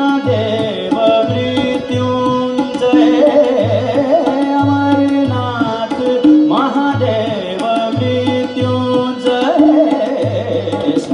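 Devotional bhajan played live: a harmonium holds sustained notes over a steady tabla beat with deep bass strokes, while a singer's voice glides through melismatic phrases.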